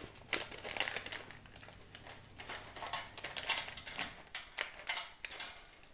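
Foil snack pouch crinkling as pieces of dried beef jerky are shaken out and drop onto a stainless steel tray, a run of irregular light clicks and rustles.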